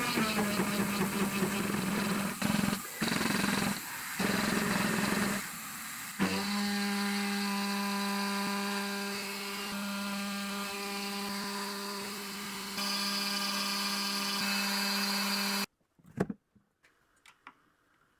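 A Carvera Air desktop CNC mill machining aluminium. The spindle and cutter make a harsh cutting noise, broken by short pauses, for the first several seconds, then settle into a steady whine. The machine stops abruptly near the end, and a few light clicks follow.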